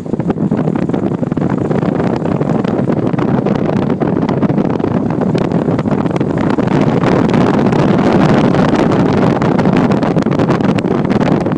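Wind rushing in through an open car window and buffeting the microphone, mixed with the road noise of the moving car. It is steady, getting a little louder about halfway through.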